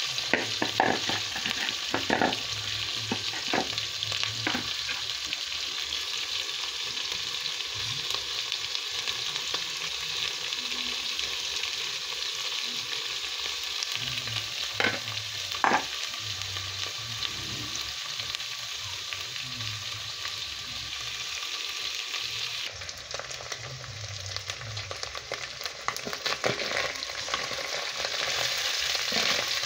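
Small fish frying in oil in a metal pot, sizzling steadily, while a metal spoon stirs them and knocks and scrapes against the pot, a few times in the first seconds and twice close together around the middle. The sizzle dulls for a few seconds late on, then picks up again at the end.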